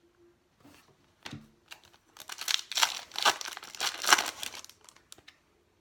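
Foil wrapper of a trading-card pack crinkling and tearing as it is opened, after a few light ticks of card handling; the crinkling starts about two seconds in and lasts about three seconds.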